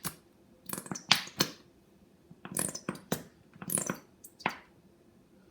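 A nearly empty honey container being worked to get the last honey out: a string of about seven short sputtering clicks and squirts, spaced irregularly.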